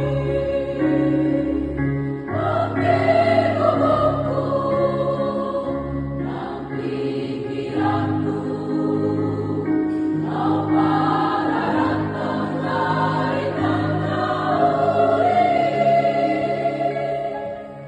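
Women's church choir singing a Batak hymn in parts over a steady keyboard accompaniment.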